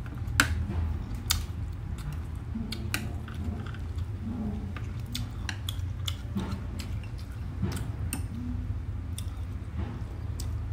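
Chopsticks and a metal spoon clicking and scraping on a porcelain plate while crispy roast pork is picked up, with some chewing, over a steady low hum.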